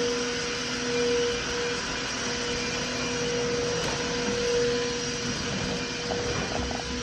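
Tineco iFLOOR 3 Breeze wet-dry vacuum running steadily: an even rushing hiss of suction with a steady motor hum under it.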